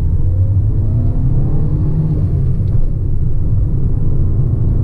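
Fiat 500's 1.2-litre four-cylinder petrol engine accelerating under throttle, heard from inside the small car's cabin: a steady low rumble, with the engine note rising in pitch, a short break about three seconds in, and the note then carrying on.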